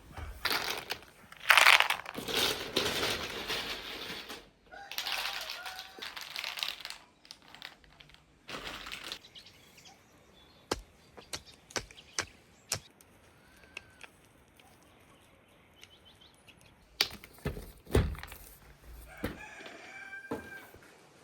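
Chickens flapping their wings in several rushing bursts over the first nine seconds, the loudest about a second and a half in, with faint clucks. Later come scattered sharp clicks and two louder knocks.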